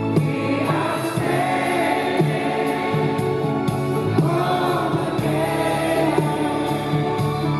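Live pop-rock ballad, with a male lead and female backing voices singing together like a choir over a band and violins.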